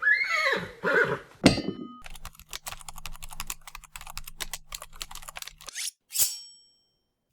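A run of short, unrelated editing sound effects: first a warbling sound that glides up and down with a thump, then rapid clicking over a steady low hum for a few seconds, then a brief burst with a ringing tone near the end, followed by silence.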